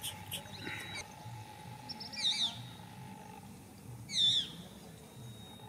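A bird calling outdoors: a short, wavering high call, heard twice about two seconds apart, the second louder, over faint background hum.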